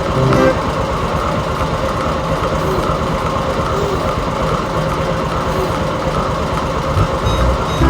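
Heavy diesel engine of construction machinery running steadily under load, a dense, rattling rumble.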